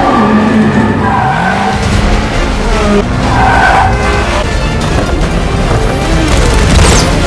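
Motorcycle engine revving and tyres skidding in a movie chase sound mix, with the engine pitch rising and falling and music playing underneath.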